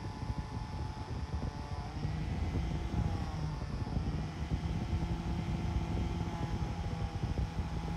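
Bench-mounted angle grinder running steadily, with the grinding noise of a knife held against its spinning abrasive disc.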